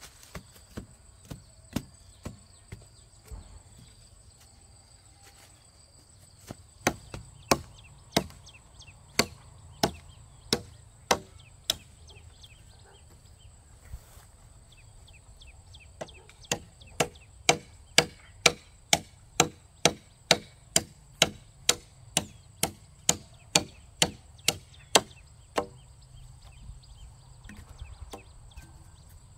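Blade chopping into wood with sharp, evenly spaced strikes: a few light ones at first, then a run of heavier blows, and after a pause a faster run of about two strikes a second. A steady high insect drone goes on underneath.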